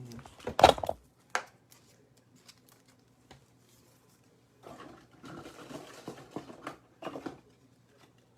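Handling noise of trading cards and a plastic card holder: a sharp knock about half a second in, a click, then a few seconds of rustling and shuffling as a jersey relic card is sealed away.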